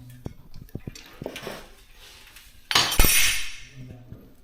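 Metal tools and parts clinking and knocking as they are handled during a motorcycle service. About three seconds in comes a louder, sharp metallic clatter.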